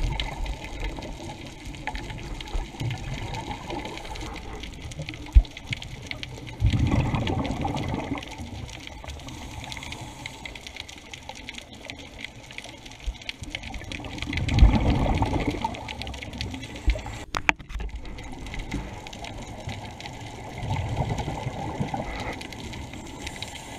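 Underwater, a scuba diver's exhaled breath bubbling out of the regulator in low rushes about every seven seconds, over a steady hiss. A sharp click about five seconds in.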